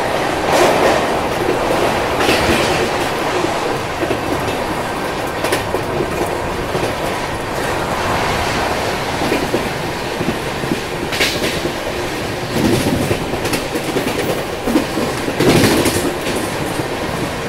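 Express passenger train running at about 110 km/h, heard from an open coach doorway: a loud, steady rush of wind and wheel-on-rail rumble. Now and then there is a sharp clack as the wheels run over rail joints and points.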